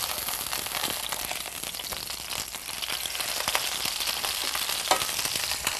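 Pork loin searing in hot oil in an electric skillet: a steady sizzle with crackling pops as the meat browns.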